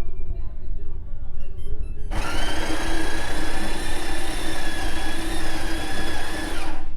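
Beko CaffeExperto bean-to-cup coffee machine running with a steady mechanical whir and a few held whining tones, starting abruptly about two seconds in and cutting off just before the end, over background music.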